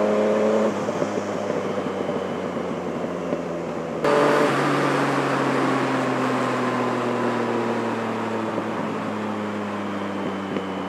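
Yamaha MT-09 inline three-cylinder engine running through an M4 carbon decat exhaust, heard from inside the rider's helmet. It pulls hard for the first moment, then eases off. About four seconds in it comes on again abruptly, and the revs then slowly fall away.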